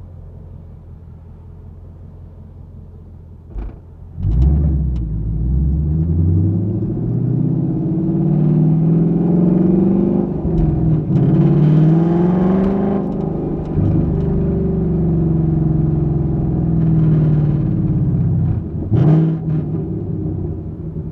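2021 Ford Mustang GT's 5.0-litre V8 exhaust, heard from inside the trunk. It idles with a low rumble, then about four seconds in the car pulls away hard. The revs climb, dip at a couple of gear changes and climb again, then ease off near the end.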